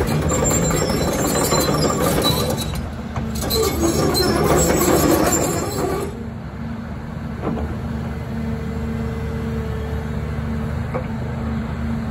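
Diesel engine of a 2012 Doosan DX235LC hydraulic excavator running steadily. It is louder and noisier for the first half, then settles to a quieter, even run about six seconds in.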